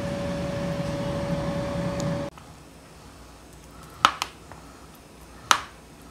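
A steady appliance-like hum with one constant tone stops abruptly about two seconds in. Then, in a quieter room, a spoon stirring shredded chicken knocks sharply against the mixing bowl: two clicks close together about four seconds in, and one more about a second and a half later.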